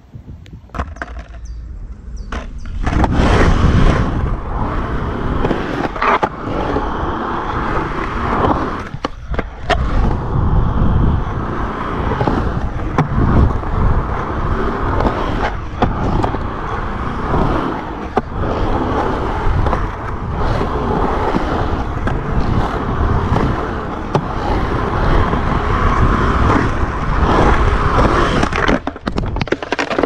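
Skateboard wheels rolling over a concrete bowl: a loud, continuous rumble that starts about two and a half seconds in and dies away just before the end, broken by a few sharp knocks.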